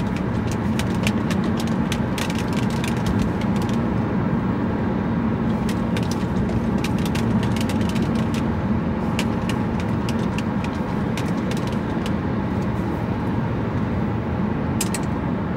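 Steady hum of a car heard from inside the cabin, with a few light clicks scattered through it.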